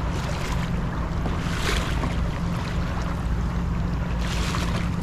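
Kayaking on open sea water: wind on the microphone and water noise, over a steady low hum, with two brief swells of splashing water about a second and a half in and again near the end.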